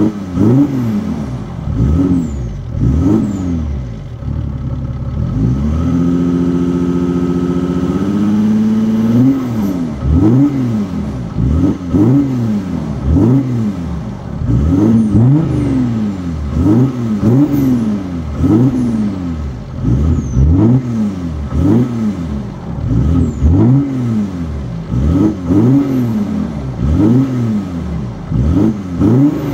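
Opel Signum 3.0 CDTI's V6 turbodiesel (Y30DT), running through a catless 3-inch turbo-back exhaust with Irmscher rear silencers, revved in quick blips, roughly one a second. About six seconds in it is held at raised revs for a couple of seconds, then the blipping resumes.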